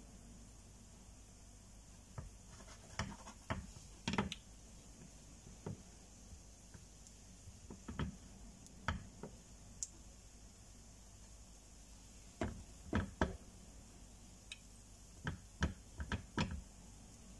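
Scattered light knocks and clinks of cookware: a frying pan handled on a glass-ceramic hob, a spoon against a stainless steel mixing bowl, and a plastic spatula. The clicks come a few at a time, in small clusters, over a faint steady background.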